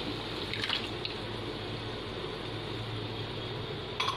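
Steady sizzle of meat and tomato masala frying in a pressure-cooker pot as yogurt is tipped and scraped in from a bowl. A spoon clinks against the bowl a little under a second in and again near the end.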